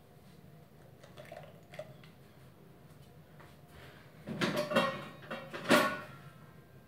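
Hard objects clattering and knocking together as they are handled, in two bursts: one about four seconds in and a sharper one about a second later, with a brief ringing after the knocks.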